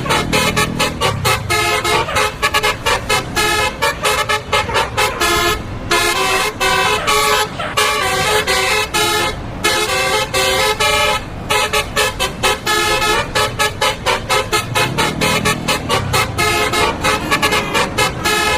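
Bus telolet "basuri" musical horn playing a fast melody of short stepped notes with brief gaps between phrases. A low rumble swells under it at the start and again near the end.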